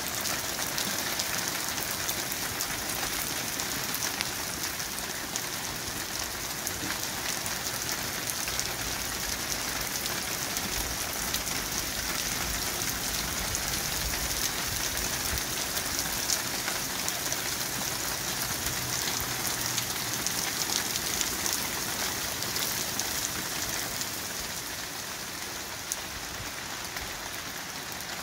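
Heavy rain pouring onto wet, puddled pavement: a dense, steady patter of drops that eases slightly near the end.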